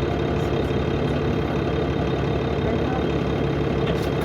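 Cummins ISL straight-six diesel engine of a 2005 New Flyer D40LF bus idling steadily, with an even low pulsing.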